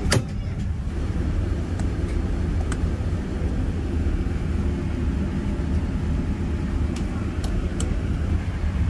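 Steady low rumble of a Boeing 787-9 Dreamliner's passenger cabin, with one sharp click just after the start and a few faint ticks later on.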